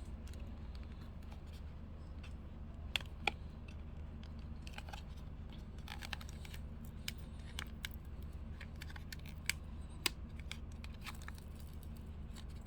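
A small enamel-pin blind box being opened by hand: scattered clicks, scrapes and rustles of the packaging, with a few sharper clicks now and then, over a steady low hum.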